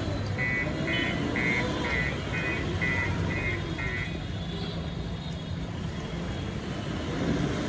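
JCB backhoe loader's diesel engine running steadily, with a high electronic beeper sounding about eight short beeps, roughly twice a second, during the first four seconds.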